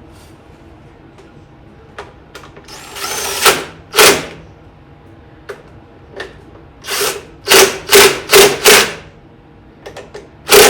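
Power drill/driver run in short trigger bursts, tightening a fastener down snug: a first rising run, then several brief bursts, four of them in quick succession past the middle.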